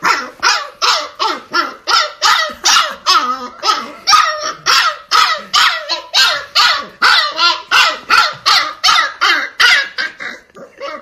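Siberian husky puppy barking and yelping over and over in a fast, unbroken string of short, high-pitched calls, about three to four a second, with a brief lull near the end.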